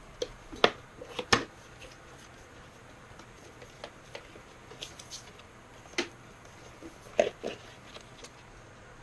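Hands handling the boxed Ryzen 5 3600 CPU's packaging: scattered sharp clicks and taps, several in the first second and a half, one about six seconds in and two more about a second later.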